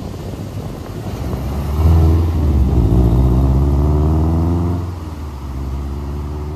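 Early-2000s Subaru Impreza's turbocharged flat-four accelerating away, its note climbing for about three seconds, dipping at a gear change about five seconds in, then climbing again as it moves off.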